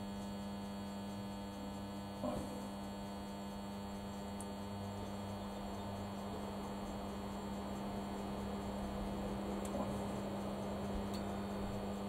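High-current step-down transformer humming steadily under heavy load while driving over a thousand amps through a steel padlock hasp that glows red hot. A faint knock about two seconds in.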